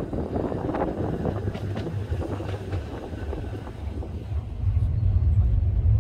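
Wind buffeting a phone microphone on the upper deck of a moving double-decker tram, over the tram's running noise and wheel clicks. A louder low rumble sets in about two-thirds of the way through.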